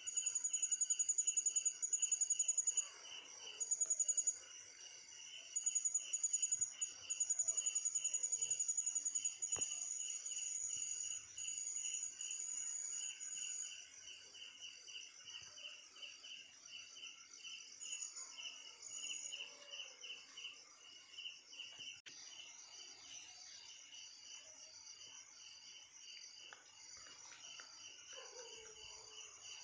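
Crickets chirping: a loud, high trill that sounds in spells of a second or two through the first half and once more briefly later, over steady pulsed chirps from other insects, a few a second.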